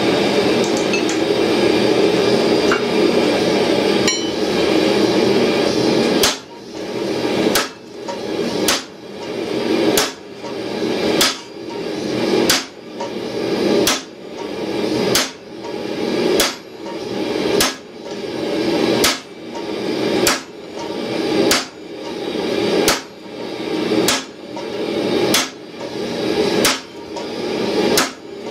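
A steady rushing noise, then a hand hammer striking a steel punch or bar set on a glowing-hot steel tow ball in the anvil's hardy hole. The blows start about six seconds in and come evenly, roughly one every 1.3 seconds, about eighteen in all.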